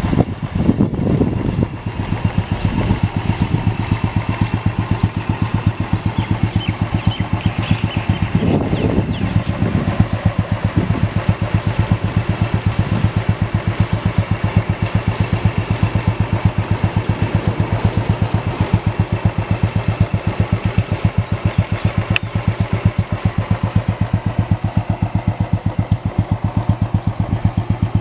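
Royal Enfield motorcycle engine running at idle with an even, rapid exhaust beat, with short louder surges near the start and around nine seconds in.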